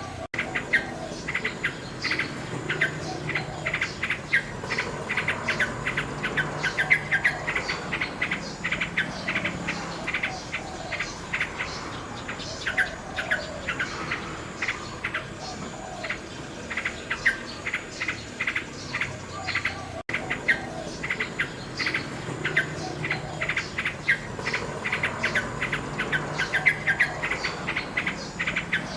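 Common nightingale singing: rapid runs of short, sharp repeated notes and trills, one phrase after another.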